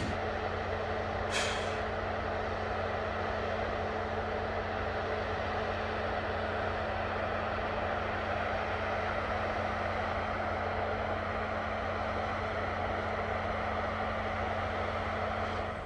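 Light-decorated freight train rolling past at night: a steady hum with a constant low tone, and one short hiss of air about a second and a half in.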